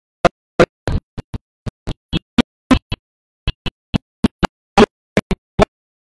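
A man's voice chopped into short clipped fragments, about three a second and irregular, with dead silence between them. It sounds like live-stream audio dropping out over a poor connection.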